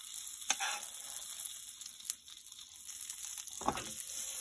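Butter sizzling around sausages frying in a pan as the hot butter is spooned over them (basting), with a couple of sharp clicks of a metal spoon against the pan.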